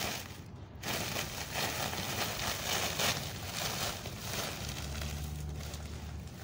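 Dry straw and a woven plastic sack rustling and crunching as straw is handled in the sack. A brief low steady hum comes in near the end.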